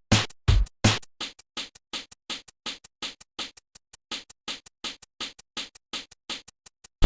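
Electronic music: a fast, chopped beat of short stuttering hits, about four a second, with heavy bass hits in the first second and lighter pulses after that.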